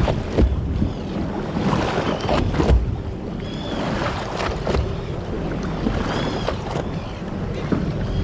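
Seawater sloshing and slapping against the side of a boat, with wind buffeting the microphone and a few sharper splashes.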